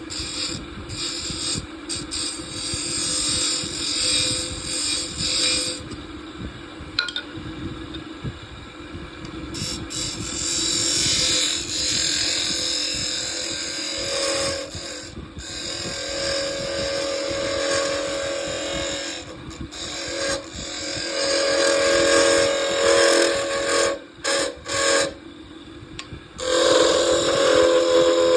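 Wood lathe running while a turning tool cuts the spinning wood, a rough scraping hiss that comes and goes over a steady motor tone. The cutting breaks off briefly a few times near the end.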